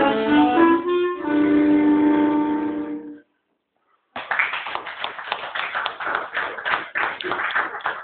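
Accordion and clarinet duet playing its last notes, ending on a held final chord about three seconds in. After a second of silence, applause starts and goes on.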